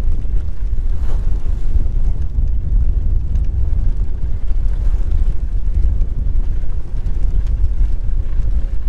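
Wind buffeting the GoPro's microphone on a heeling sailboat: a steady, heavy low rumble.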